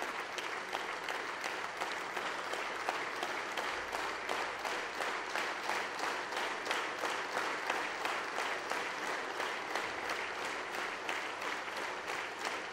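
A large audience of parliament deputies applauding, the clapping settling into a steady rhythm.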